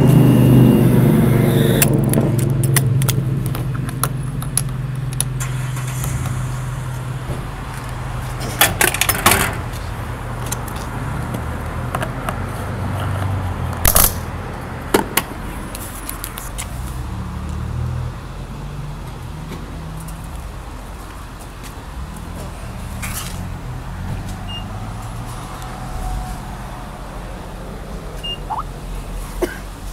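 Gas pump nozzle dispensing fuel into a car's tank: a low steady hum that fades over the first several seconds, with scattered clicks and a few sharp knocks from handling the nozzle and pump.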